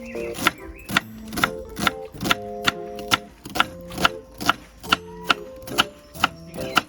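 Background music: a light, cute tune of short held notes over a crisp clicking beat of about two and a half clicks a second.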